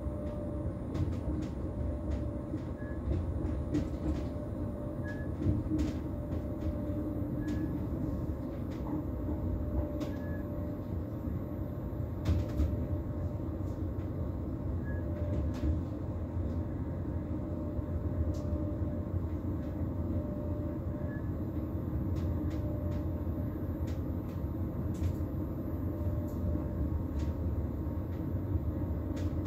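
Cab interior of a Bombardier Twindexx double-decker electric train: a steady low rumble and hum, with scattered sharp clicks at irregular intervals.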